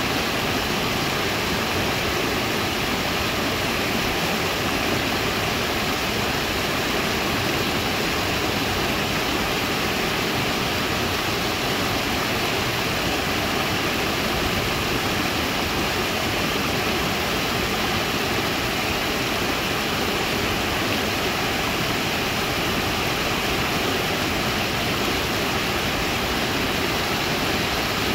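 Small creek cascade pouring over a rock ledge into a pool: a steady, even rush of falling water.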